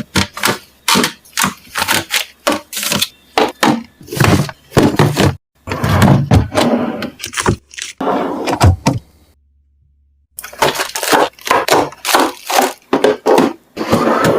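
Rapid handling noises of food packaging and containers being sorted into a fridge: sharp clacks, thunks and crinkles, about two a second, with a second of silence about ten seconds in.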